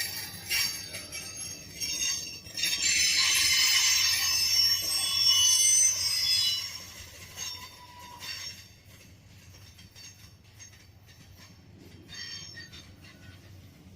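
Train wheels squealing and ringing with high metallic tones over a low rumble as the cars pass. The squeal swells loudest a few seconds in, then dies away, with a faint return near the end.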